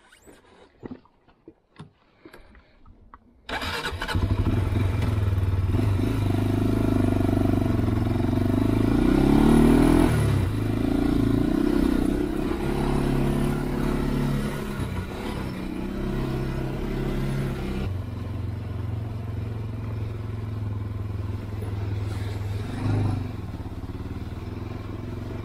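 Honda 400EX ATV's single-cylinder four-stroke engine, which comes in suddenly about three and a half seconds in after a few quiet seconds of small clicks. It then runs as the quad is ridden, its revs rising to a peak near ten seconds and falling back. From about eighteen seconds it runs steadily and a little quieter.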